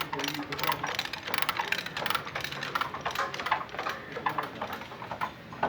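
Irregular, rapid metallic clicking and clinking from a chain-and-ratchet pulling rig at work as it pulls a crash-crumpled car front back out.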